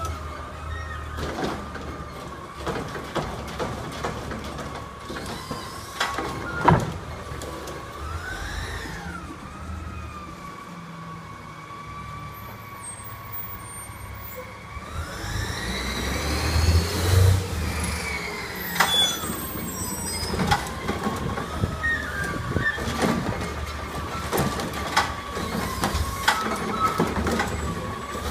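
Garbage truck at work: a steady, slightly wavering high whine over the running engine, which revs up and back down about halfway through, with scattered clunks and knocks.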